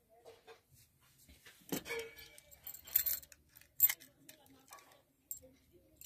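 Scattered metallic clicks and clinks of a brass padlock being handled, the sharpest about three and four seconds in.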